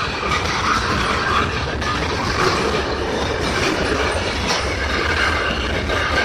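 A freight train's cars rolling past: steady noise of steel wheels on the rails, with a few sharp clicks.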